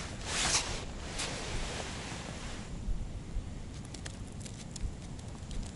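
Wind rumbling on the microphone, with a short rustle just after the start and a few faint ticks in the second half.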